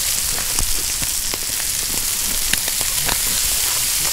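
Pieces of liver frying in a pan over an open campfire: a steady sizzling hiss with scattered pops and spits.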